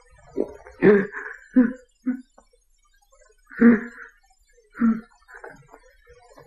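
A man's voice in short, broken sobs and gasps, several in quick succession and then two more after a pause, as he struggles to hold back his emotions.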